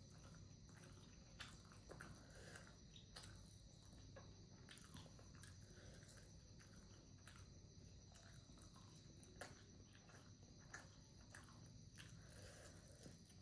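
Faint chewing of momo dumplings, with scattered soft clicks of mouth and teeth over a low steady hum.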